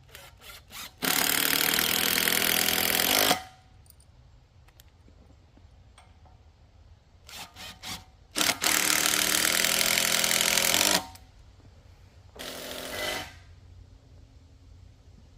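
A handheld power tool run in three bursts: two of about two and a half seconds each and a short one near the end, with a few sharp clicks before each of the first two.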